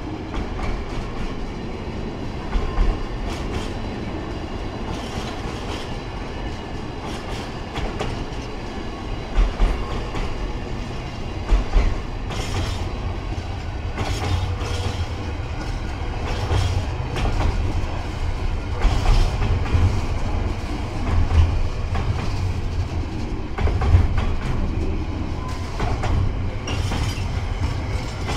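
Container freight train's wagons rolling past: a steady low rumble of wheels on rail, with repeated sharp clicks and clacks as the wheelsets pass over rail joints. It grows somewhat louder about halfway through.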